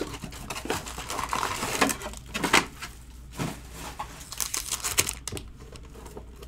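Plastic shrink wrap crinkling and tearing as it is stripped off a trading-card box, with card packs rustling and sliding as they are handled. The crackles come in irregular bursts.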